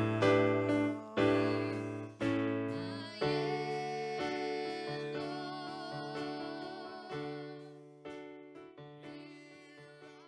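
Slow music. Chords are struck about once a second, then give way to long held chords that fade out near the end.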